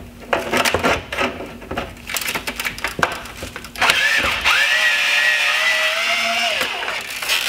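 Long screwdriver backing a T20 Torx screw out of a plastic Mercedes-Benz C-Class headlight housing: short clicks and creaks, then about four seconds in a steady high squeal lasting nearly three seconds as the screw turns in the plastic.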